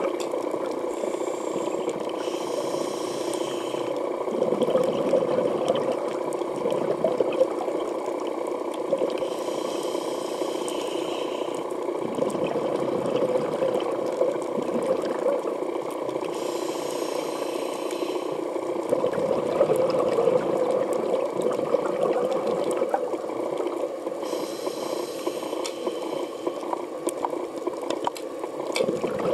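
Scuba diver's regulator breathing underwater: a hissing inhale about every seven seconds, each followed by a longer bubbling exhale, over a steady underwater drone.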